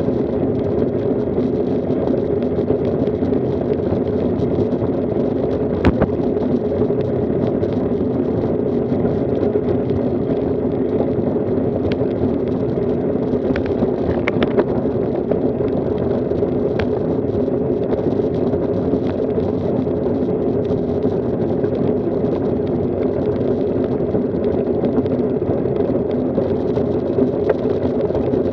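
Steady muffled rush of wind on the microphone and tyre noise from road bicycles riding in a group on asphalt, with a few short sharp clicks, the loudest about six seconds in.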